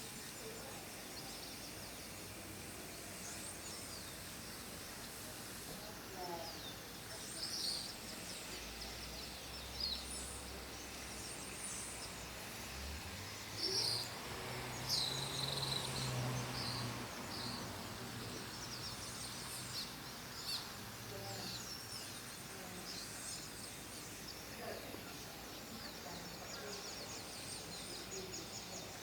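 Faint outdoor ambience: many birds chirping and calling in short bursts over a steady background hiss. A low hum comes in about a third of the way through and fades out again a few seconds later.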